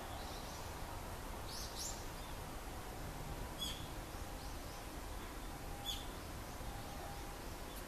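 A few short, high bird chirps, scattered several seconds apart, over a steady low background hum.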